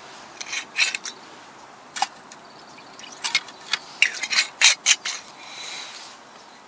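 Glass vodka bottle being handled and its plastic screw cap twisted by hand: a run of sharp clicks and scrapes, thickest between about three and five seconds in.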